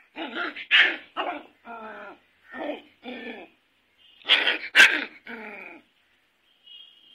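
Puppy barking repeatedly in a run of about nine short barks. The loudest come about one second in and again about four and a half seconds in, and the barking stops about six seconds in.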